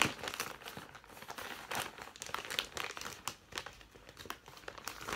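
Plastic mailing bag crinkling and tearing as it is pulled open by hand, in irregular crackles with a sharp one at the start.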